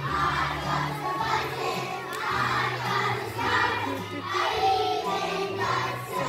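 A kindergarten class singing a song together in unison, with hand motions, over musical accompaniment. The young voices come in phrases about a second long over steady low backing notes.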